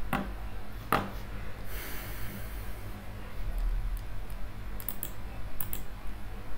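A few clicks and taps from working a computer while writing notes on screen: two louder taps about a second apart at the start, then a quick cluster of sharp clicks near the end as strokes are undone, over a low steady hum.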